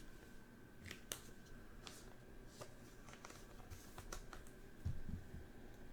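Faint clicks and soft scrapes of stiff trading cards being handled and slid off a pack one at a time, with a soft low thump about five seconds in.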